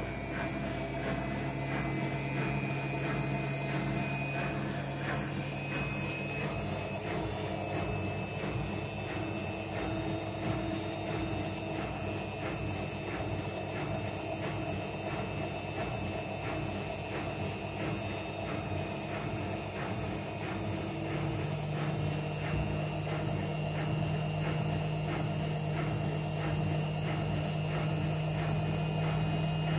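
Front-loading washing machine spinning its drum: a steady motor whine with a faint regular beat. The low motor hum steps up in pitch about two-thirds of the way through as the drum speeds up.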